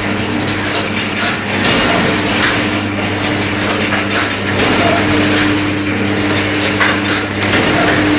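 Automatic paper dona (leaf-plate) making machine running: a steady motor hum with the repeated clatter of its pressing mechanism.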